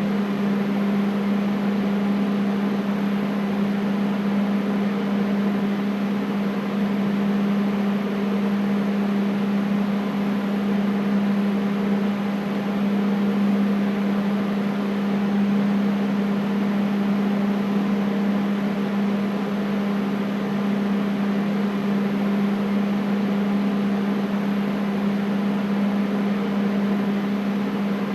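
Air conditioner running steadily: a constant low hum under an even rush of air, unchanging throughout.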